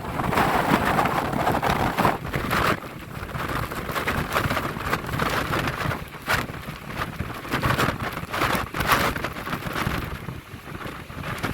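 Storm-force wind buffeting the microphone in gusts, rising and falling every second or two, over the rushing noise of a rough sea.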